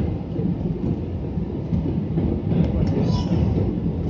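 Jet airliner cabin noise heard from a window seat over the wing: the steady low rumble of the engines and rushing air during the descent to land.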